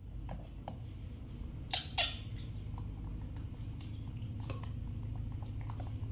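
Metal spoon clinking and scraping against a glass cup in small scattered clicks, with two sharper clinks close together about two seconds in, over a steady low hum.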